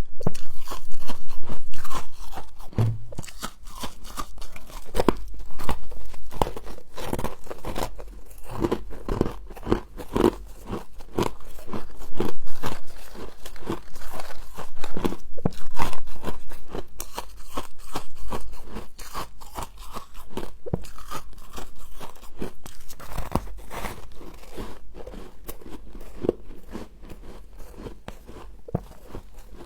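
Close-miked crunching and chewing of freezer frost: a dense run of crisp, crackling bites, louder in the first half and quieter toward the end.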